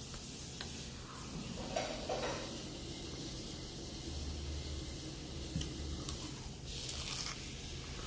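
Close-up eating sounds over a steady hiss: a few brief crunching or rustling noises, about two seconds in and again near seven seconds.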